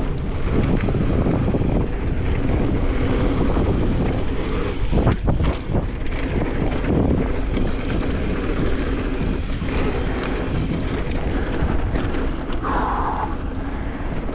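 Mountain bike riding fast down a dirt flow trail, heard from a GoPro: wind buffeting the microphone over a steady rumble of tyres on dirt, with sharp clicks and rattles from the bike throughout.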